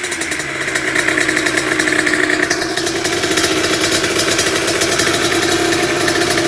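Yamaha DT two-stroke engine with a Top Rose 75 cylinder kit and aftermarket exhaust, its pitch dropping back from a rev right at the start and then idling steadily.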